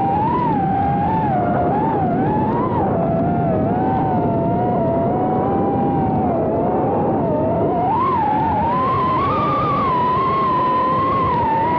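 Radio-controlled off-road buggy's motor whining, its pitch wavering up and down with the throttle and sitting higher from about eight seconds in, over a rough rumble of the chassis and tyres running on the dirt track.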